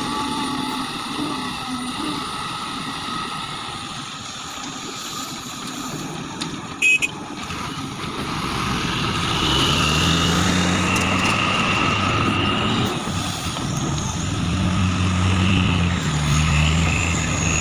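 Heavy diesel engine of construction machinery running steadily, growing louder with a stronger low drone from about halfway through. A short sharp click a little before that.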